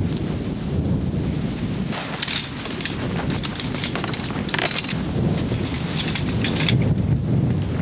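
Strong wind buffeting the microphone with a continuous low rumble. Between about two and seven seconds in, bursts of light crackling are heard over it.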